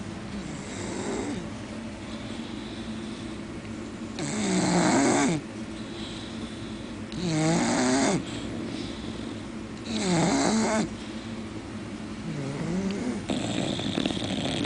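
A sleeping pet snoring, with loud, drawn-out snores about every three seconds: roughly four, seven and ten seconds in, plus softer ones near the start and near the end.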